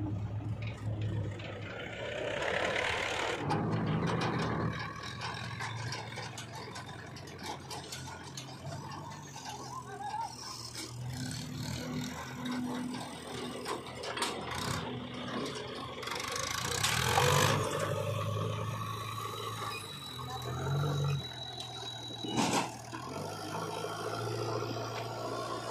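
Diesel engines of a tractor and a JCB 3DX backhoe loader running and working, with a few louder scraping and clanking noises from the loader bucket and the steel tipping trolley, the strongest twice in the second half.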